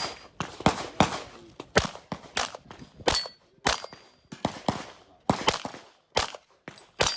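Rapid handgun fire in an IPSC stage: about twenty sharp shots, many in quick pairs a fraction of a second apart, with short pauses between strings.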